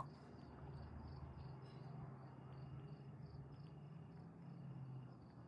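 Faint cricket chirping, an even run of high chirps about four a second, over a faint low steady hum.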